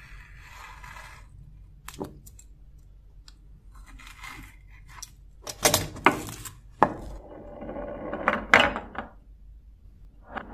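Masking tape on a knife blade being worked by hand: a faint scraping as a craft knife trims it, then from about halfway several loud crackling bursts as tape strips are pressed and peeled, mixed with small clicks and knocks of handling on the workbench.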